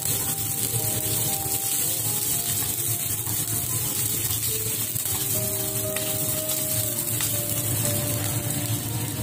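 Ginger, garlic and onion sizzling steadily in hot oil in a frying pan, with background music of sustained notes.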